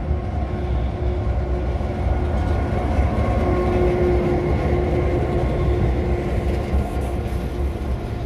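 NSW 42 class diesel-electric locomotive hauling heritage carriages past: a deep engine rumble with a steady hum, loudest about three to four seconds in as the locomotive goes by, then the carriages rolling past.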